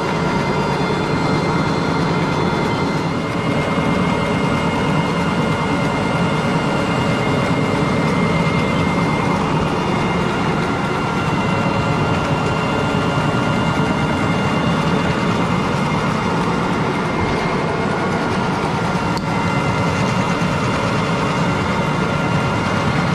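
Rotary carpet extractor working across the carpet: a loud, steady rush of vacuum suction with a faint whine, drawing dirty water up its clear recovery tube.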